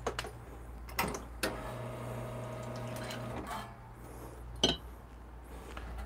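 A few light clicks and knocks of handling at an espresso bench, with a faint steady motor hum lasting about two seconds in the middle.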